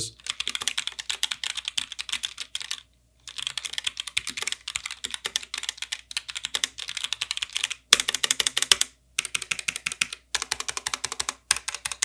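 Fast typing on a Roccat Vulcan TKL keyboard with optical switches: a dense run of key clicks, broken by a short pause about three seconds in and a few brief breaks later.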